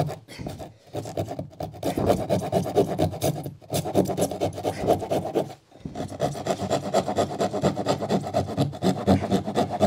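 Rapid rasping back-and-forth strokes of a hand-held blade cutting into OSB board through a cut-out in plasterboard. The strokes stop briefly a few times.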